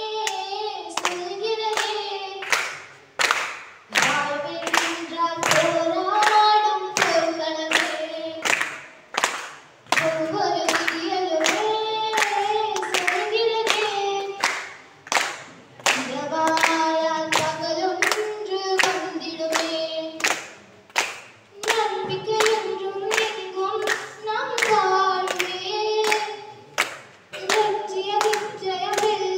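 A woman singing a song into a microphone, amplified over a loudspeaker, while the audience claps along in a steady beat of about two claps a second.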